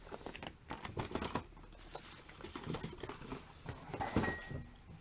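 Hands moving cardboard product boxes on a shelf: a string of light taps, scrapes and rustles, with a short squeak about four seconds in.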